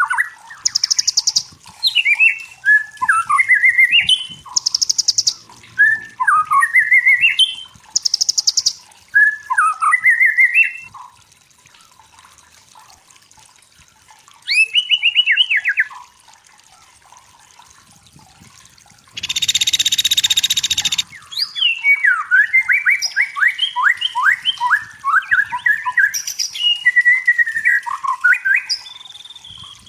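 White-rumped shama singing: a string of varied sliding whistled phrases with short harsh buzzing notes between them, then a pause, a loud harsh two-second burst about two-thirds of the way through, and a rapid run of phrases after it.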